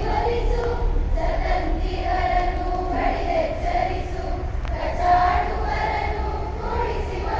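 A large crowd of women singing a Kannada song together in unison, over a steady low rumble.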